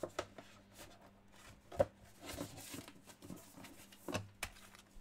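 Handling of a trading card and its protective sleeve as the card is worked into it: a few scattered sharp clicks and taps, with a soft rustle in the middle.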